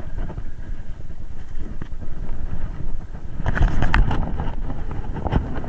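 Wind buffeting the microphone as a steady low rumble, with a few knocks and clatter of handling on the boat deck about three and a half to four seconds in.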